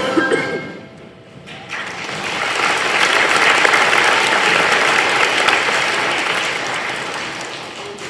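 Audience applauding, swelling about two seconds in and fading near the end, after the last note of a children's choir song ends in the first half second.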